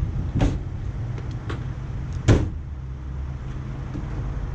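A panel van's rear side-hinged door is swung shut with a loud slam a little over two seconds in, after a lighter knock about half a second in. A steady low rumble runs underneath.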